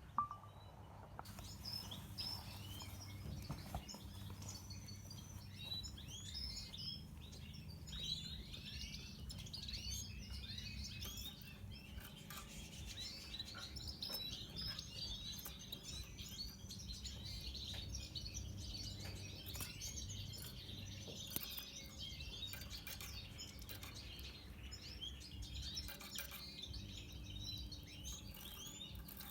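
Red siskins twittering and chirping continuously, with many quick high chirps overlapping, over a low steady hum.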